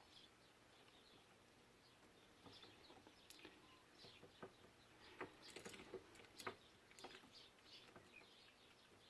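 Near silence, with faint bird chirps in the background and a few light clicks, most of them between about five and seven seconds in.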